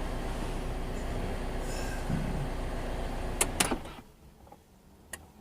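Chevy Cobalt 2.2-litre four-cylinder engine idling steadily, then shut off about four seconds in, with two sharp clicks just before it stops and another click after.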